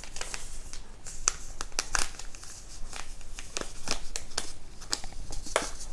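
Small packet of instant yeast crinkling in the hands as it is torn open and tipped out: a run of irregular, sharp crackles.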